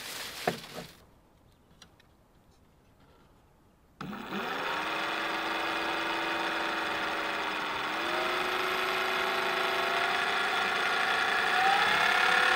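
Plastic bag rustling briefly at the start. About four seconds in, the kayak's ESC-driven electric outboard motor starts, its propeller spinning in the air, and runs with a steady whine that shifts slightly in pitch partway through and rises in pitch near the end.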